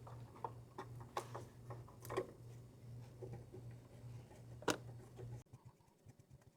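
Faint scattered clicks and taps of the cartridge oil filter housing being fitted and threaded in by hand, over a steady low hum that cuts off abruptly near the end.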